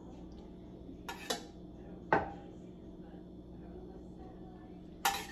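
Kitchen utensils clinking and knocking against cookware: four sharp strikes. The loudest comes about two seconds in and rings briefly.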